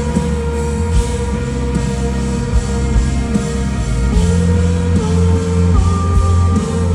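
A live band playing rock music: electric guitar and drums over a heavy low end, with long held notes that shift in pitch.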